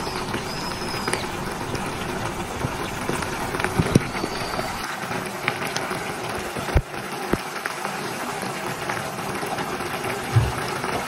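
Braising sauce simmering around small whole fish in a nonstick frying pan, bubbling and crackling steadily, with a few sharper knocks.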